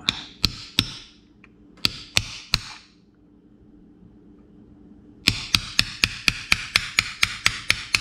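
Hammer striking a steel punch to drive an inner bushing out of a throttle pedal bracket, each blow a sharp metallic knock with a short ring. Two sets of three blows in the first three seconds, a pause, then a quick run of about four blows a second from about five seconds in.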